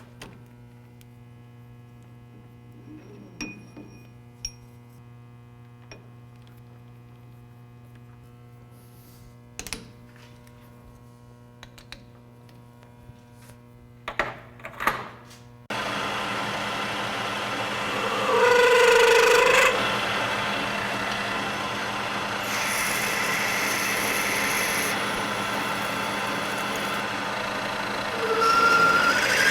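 A machine tool's motor hums steadily, with a few light clicks and knocks. About halfway in, loud metal-cutting noise starts suddenly: a steady rasping rush with brief squeals now and then.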